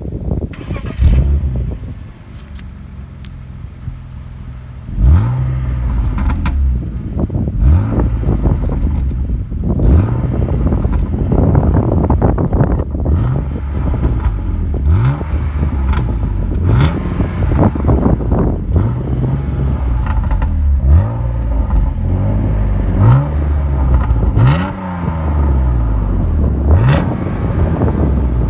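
BMW E36 328i's M52B28 2.8-litre inline-six, breathing through a stock E36 M3 rear muffler, idling and then, from about five seconds in, blipped over and over: each rev rises quickly and drops back to idle, every second or two. Wind noise buffets the microphone.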